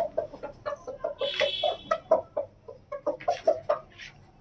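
Chicken clucking: a rapid, steady run of short clucks, several a second, with a brief shrill squawk about a second in.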